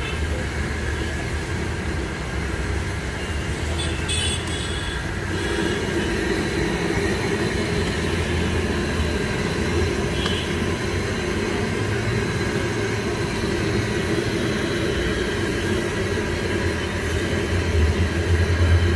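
Steady street-traffic rumble mixed with batter-coated potato vadas sizzling as they deep-fry in a large wok of hot oil.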